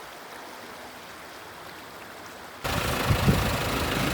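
Faint, steady rush of flowing creek water. About two and a half seconds in it cuts suddenly to a much louder off-road vehicle engine running.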